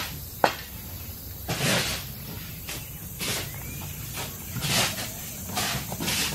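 Repeated scrapes of a hand tool through loose dirt and sand, a gritty hiss about every second or so, with one sharp click about half a second in.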